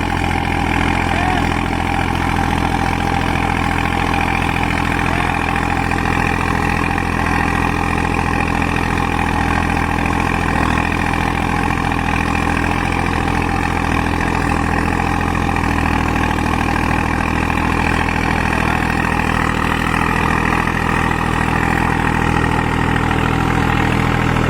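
New Holland 5620 tractor's diesel engine running steadily under load at about 1800 rpm in second low gear, driving a rotary super seeder through paddy stubble. The engine note shifts slightly about fifteen seconds in.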